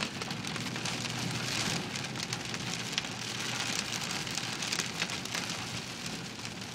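Heavy rain pelting a car's roof and windscreen, heard from inside the cabin as a dense, steady patter of countless drops.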